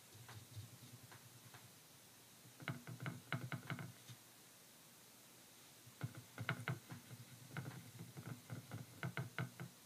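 Rapid light taps and clicks of a paintbrush against a paint palette while white acrylic paint is mixed and thinned. They come in two runs, one of about a second near the start and a longer one of about three and a half seconds in the second half.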